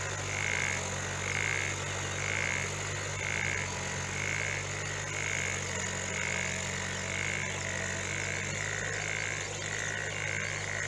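A frog calling over and over, one call about every second, each a short, even croak. Beneath it the engine of a tractor working a flooded field runs as a steady low hum.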